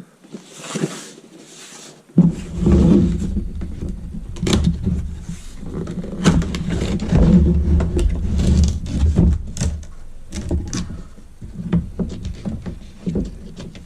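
Box and packaging being handled while a pistol is unpacked: a brief rustle, then from about two seconds in loud rubbing and scraping full of clicks and knocks.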